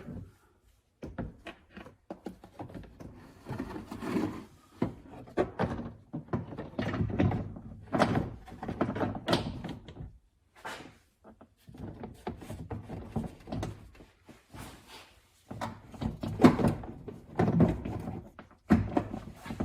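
Plastic hatch trim cover being handled and lined up against the tailgate: irregular knocks, taps and rubbing of plastic on plastic, busier near the end.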